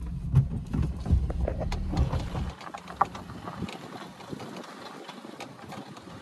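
Maruti Suzuki Alto driving on a rough dirt track, heard from inside the cabin: a low engine hum with knocks and rattles. About two and a half seconds in the hum drops away, leaving a lighter hiss with scattered ticks.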